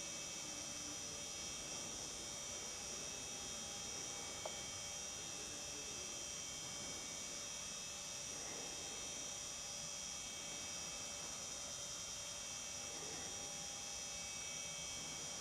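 A steady hum with several thin, constant high whines over a faint hiss, and one short click about four and a half seconds in.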